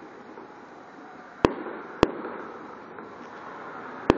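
Fireworks exploding: three sharp bangs, the first about a second and a half in, the second half a second later and the third near the end. Each bang trails off in a short echo.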